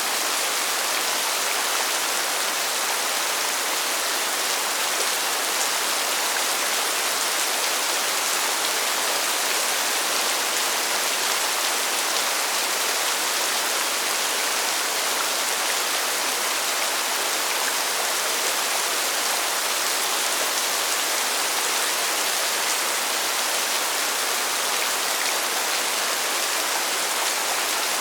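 Steady rain falling: an even hiss with faint, scattered ticks of drops.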